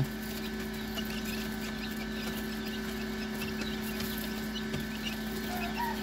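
Day-old quail chicks peeping, with many small high chirps scattered throughout, over the steady hum of the incubator they are being brooded in.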